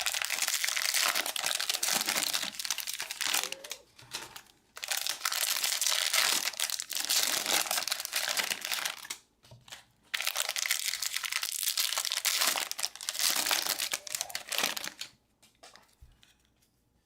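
Baseball card pack wrappers crinkling and tearing as Bowman Draft packs are ripped open and handled, in three long spells with short pauses between them.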